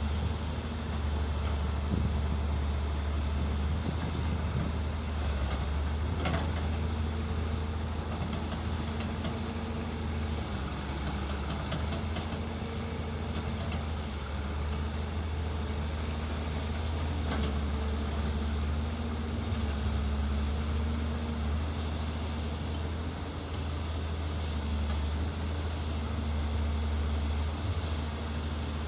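Diesel engine of a hydraulic excavator running steadily, its pitch stepping slightly up and down as it works. There are a few short knocks.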